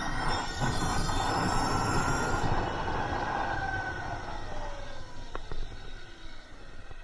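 Electric motorcycle motor whining, its pitch gliding up and down with speed, over wind and tyre rush on the microphone that eases off in the second half. There is a sharp click about five and a half seconds in.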